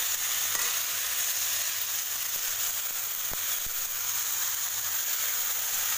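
Hot oil sizzling steadily in an aluminium kadai as raw banana pieces go into shallots, garlic and dried chillies frying with turmeric.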